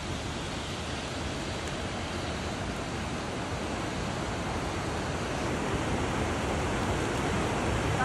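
A fast-flowing, swollen river churning through rapids: a steady rush of water that grows slightly louder toward the end.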